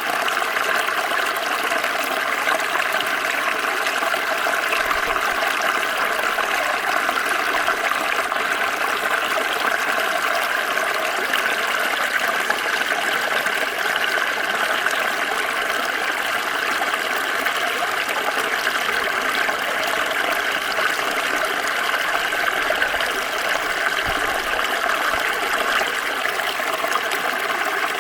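Small stream flowing over stones, a steady rushing and gurgling of water.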